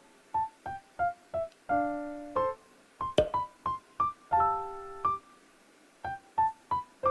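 Background music: a light, bouncy keyboard tune of short staccato notes, with a couple of briefly held chords.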